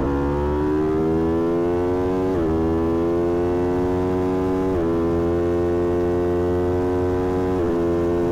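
Aprilia Tuono V4 1100 Factory's V4 engine pulling hard at full throttle. Its note climbs steadily through the gears, broken by three quick upshifts about every two and a half seconds, each a brief dip in pitch. It is heard through a microphone mounted in the front fairing, which makes it sound slightly distorted.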